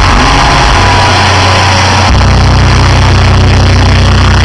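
Stage smoke jets hissing for about two seconds, then a deep, steady rumble with a fast flutter from the concert sound system, heavily overloaded on a phone microphone.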